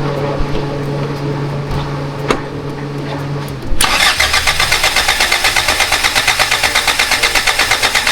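A steady hum, then about four seconds in a diesel truck engine cranks on its starter in a fast, even beat, wanting to fire but not catching. The cranking pushes fuel and trapped air out of the system through a loosened injector nut, to bleed air that is keeping the engine from running.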